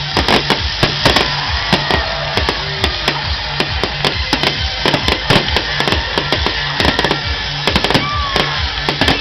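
Fireworks crackling in rapid, irregular cracks over loud music with a steady beat, with a short falling whistle near the end.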